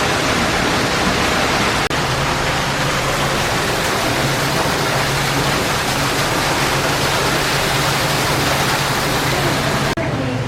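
Steady rushing of water, loud and even, with a low hum under it.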